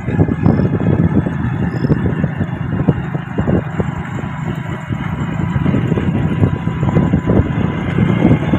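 Wind buffeting the microphone while moving: a loud, uneven low rumble.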